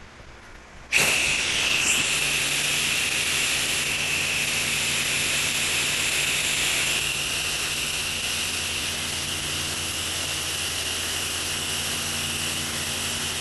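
Spray wand of a house-washing rig hissing steadily as cleaning chemical is sprayed onto the gutters, starting suddenly about a second in, with a steady pump hum underneath.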